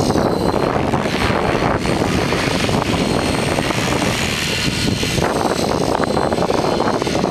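Electric RC helicopter (Align T-Rex 600EFL Pro) flying, its rotor blades chopping the air over a high, thin motor whine, mixed with heavy wind noise on the microphone.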